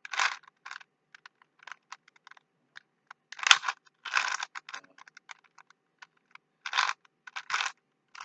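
Rubik's cube being twisted by hand: irregular plastic clicking and clacking as the layers turn, with a handful of louder turns scattered through and faint ticks in between.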